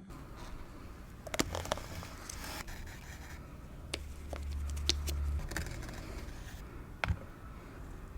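Gyro and its wrapping being handled before the first bite: scraping and rustling, with a few sharp clicks scattered through.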